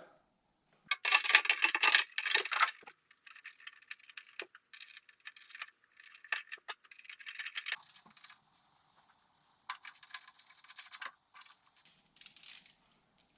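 Window regulator rattling and clinking inside a 1973 Datsun 240Z door as it is worked back into place: a loud burst of rattling about a second in, then scattered lighter clinks and rattles.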